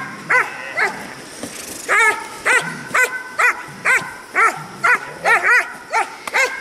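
Six-month-old German Shepherd puppy barking repeatedly at the protection-training helper: short, high barks about two a second, with a pause of about a second near the start.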